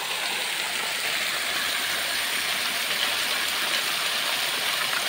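Water pouring out of a plastic pipe outlet, a steady rushing and splashing that gets slightly louder about a second in.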